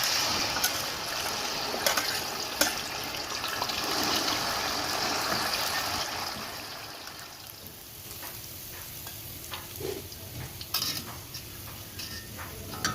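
Food frying in hot oil: a loud sizzle starts suddenly and dies down after about six seconds into a quieter frying hiss, with scattered clicks of a utensil against the pan.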